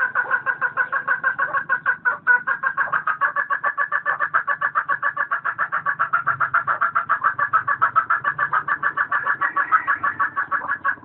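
Hen clucking in a rapid, even run of about seven or eight clucks a second: the cackle of a laying hen. It stops abruptly at the very end.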